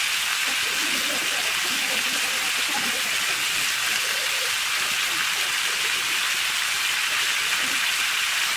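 Chicken and spices frying in hot oil in a pan, giving a steady, even sizzle.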